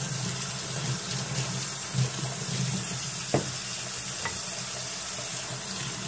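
Hot water running steadily from a tap into a sink as revolver parts are rinsed of detergent under it, with a couple of light knocks near the middle.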